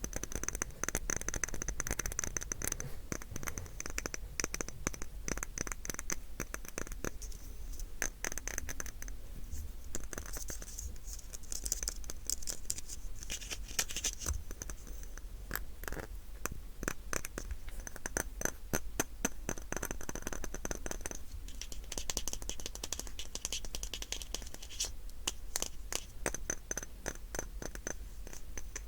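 Close-miked scratching with dense, rapid clicks on a small household object.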